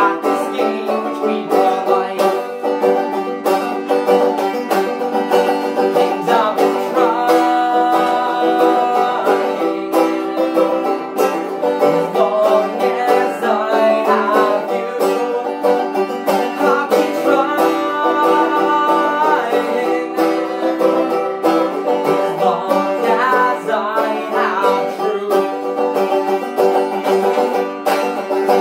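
Five-string open-back banjo played in a steady plucked rhythm, with a man singing over it and holding some long notes.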